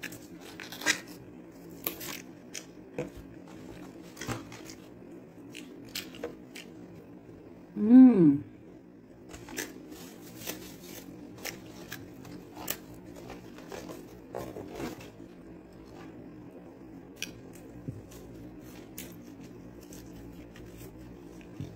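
Close-up eating sounds from fast-food french fries and a sandwich: scattered small clicks, crackles and rustles of chewing and of handling the food and its paper packaging. About eight seconds in comes a short, loud hum whose pitch rises and then falls, with a fainter one a few seconds later.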